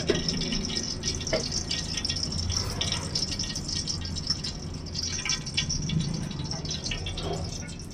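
Light clatter and clinks of cookware and utensils, scattered small knocks over a steady low hum, as a pot is readied with oil and ghee on the stove.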